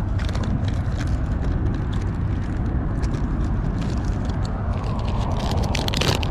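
Plastic lure packaging and a tackle bag being handled: scattered crinkles and clicks, thickest near the end, over a steady low rumble.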